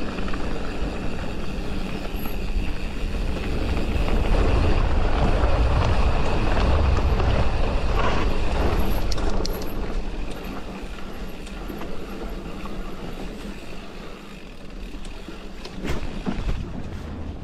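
Mountain bike ridden along a forest trail: wind buffeting the action camera's microphone over the tyres rolling on dirt, a steady rumble that swells in the middle, with a few sharp knocks near the end.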